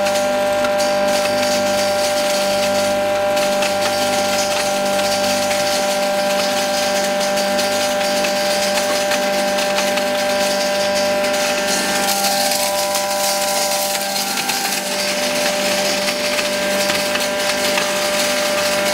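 Electric aata chakki (flour mill and masala grinder) running steadily while grinding maize into daliya through its daliya mesh: a constant motor hum over grinding noise. Its tone shifts briefly about two-thirds of the way through.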